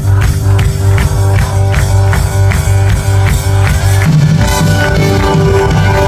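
Live indie-electronic band playing: a steady beat of about two to three strokes a second over a heavy bass line. About four seconds in, the bass line shifts to a new, higher pattern.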